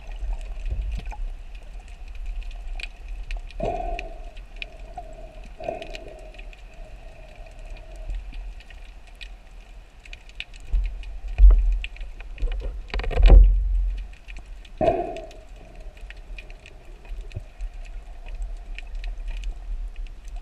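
Underwater ambience through an action camera's housing on a spearfishing dive: water rushing and a low rumble, scattered small clicks and crackles, and a few short moaning tones. Around two-thirds of the way in, the water noise surges louder for a few seconds.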